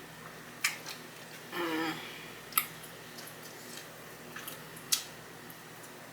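Close-miked eating of Cajun chicken wings: a few sharp clicky bites and chewing, with a short hum of voice about a second and a half in.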